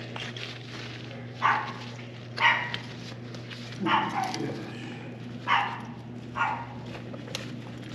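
A dog barking five times at uneven intervals over a steady low hum that stops near the end.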